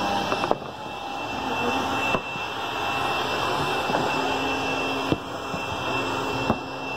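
Steady outdoor background noise with a thin, high steady tone running through it, broken by four sharp clicks a second or two apart.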